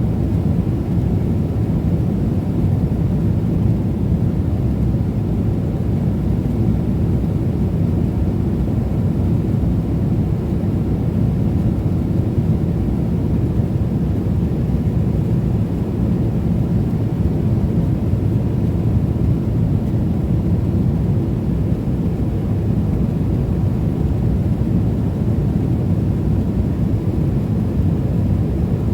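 Steady low rumble of cabin noise inside a Boeing 777-300ER airliner, an even roar with no breaks or changes.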